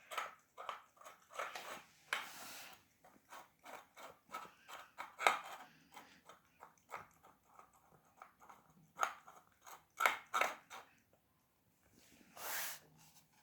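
A cat licking and eating food it has been offered: a run of quick, irregular wet lapping and smacking clicks.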